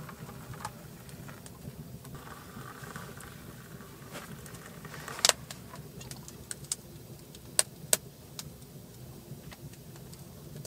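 Sharp metallic clinks of metal camping mugs, kettle and spoon being handled while hot drinks are made, the loudest about five seconds in and two close together about eight seconds in, over a low steady rumble.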